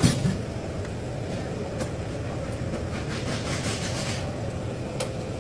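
Vehicle engine running steadily with a low rumble, a knock right at the start and a couple of light clicks later.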